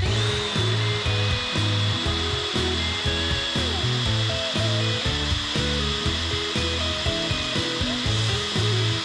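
Electric drill running steadily with a high whine as it bores a hole through stacked flat stainless steel strips held in a vise, over background music.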